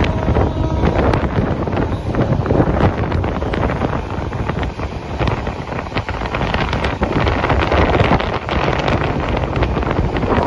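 Wind buffeting the microphone at the open door of a moving train, over the steady rumble of the LHB passenger coach running along the track.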